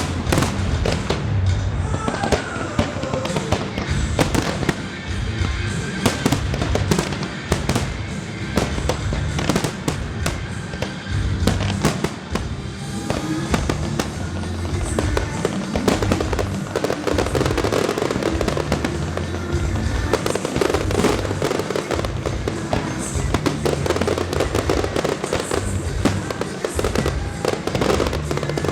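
Fireworks display: shells bursting and crackling in rapid, near-continuous succession over music.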